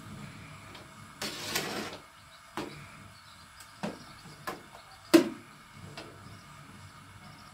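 A metal spoon scraping food off a ceramic plate and tapping against a steel cooking pot: a short scrape a little over a second in, then a handful of separate sharp clinks, the strongest about five seconds in.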